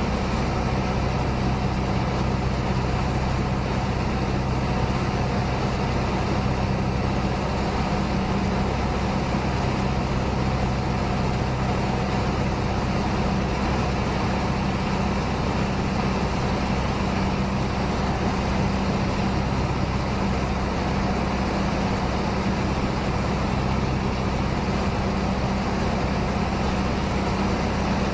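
Cessna 150's four-cylinder Continental O-200 engine and propeller droning steadily in flight, with a constant rush of air.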